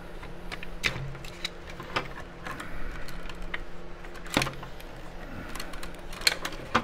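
Plastic clicks and knocks from a small radio's opened housing and circuit board being handled and turned over, irregular, with the sharpest knocks about four seconds in and again near the end, over a faint steady hum.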